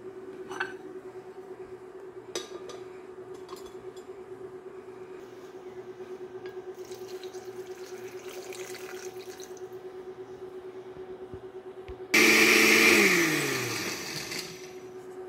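Water pouring into a countertop blender jar of puppy kibble, then the blender motor starts suddenly about twelve seconds in, runs loudly for about a second, and winds down with a falling pitch. A steady low hum and a few clicks sit underneath.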